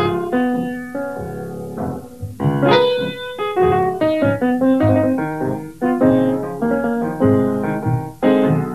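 Piano playing a blues tune: a steady run of struck notes and chords.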